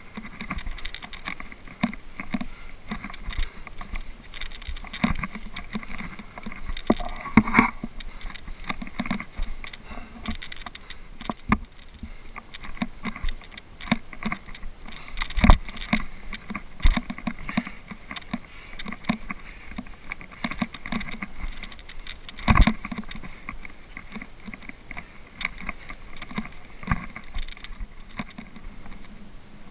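Irregular scraping, rustling and knocking of a climber's gloved hands, boots and clothing against rock, picked up close by a body-worn camera. A few sharper knocks stand out about a quarter, half and three quarters of the way through.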